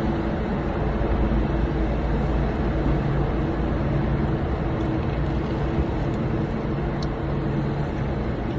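Steady noise of a car driving, heard from inside the car: a constant road rush over a low engine hum.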